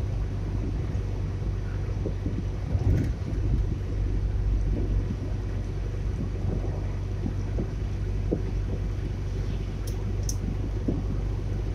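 Car interior road noise while driving: a steady low rumble of engine and tyres, with scattered soft knocks, a louder bump about three seconds in and two short high clicks near the end.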